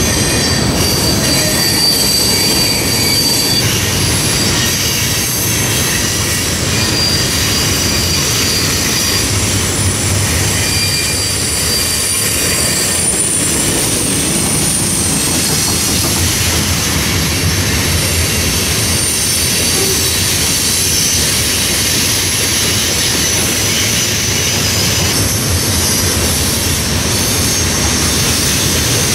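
Freight cars rolling past: a steady rumble of steel wheels on the rail, with high, thin wheel squeals that come and go.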